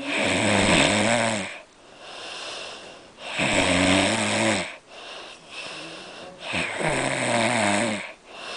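A man snoring loudly: three long snores about three seconds apart, with quieter breathing in between.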